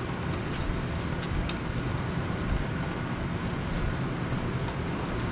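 Engine oil draining from a still-warm engine into a bucket: a steady pouring stream.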